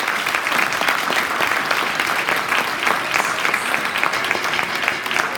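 A school assembly audience applauding in a large hall: dense clapping from many hands that starts suddenly just before and holds steady, easing slightly near the end.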